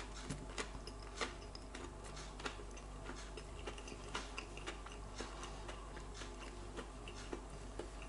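Faint, irregular small clicks and ticks of eating, mouth and food-handling sounds, over a low steady hum.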